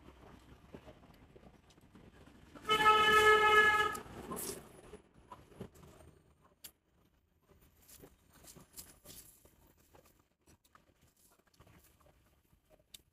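A horn sounds once, a steady single-pitched honk lasting a little over a second, about three seconds in. Faint clicks of a spoon and chopsticks against a porcelain bowl follow.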